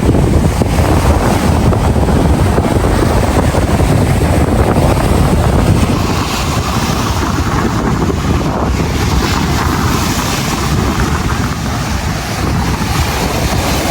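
Wind buffeting the camera microphone: a loud, steady, low rush of noise that eases slightly about halfway through.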